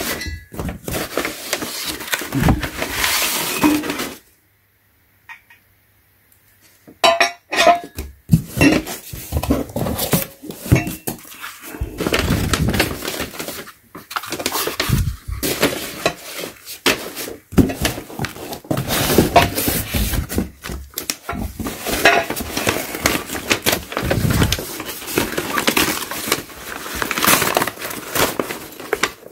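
Brown packing paper rustling and crinkling while the red-painted steel parts of a portable tire changer are unpacked, with the tubes clinking and knocking against each other. The handling stops for about two seconds, around four seconds in.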